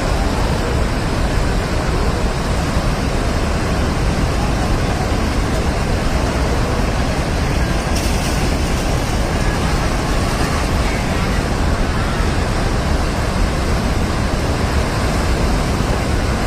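Loud, steady rush of a flash flood: a torrent of water, mud and rocks pouring down a river channel, heavy in the low end.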